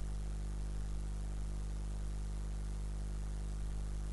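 Steady low electrical hum with faint hiss: the background noise of the recording microphone and computer setup.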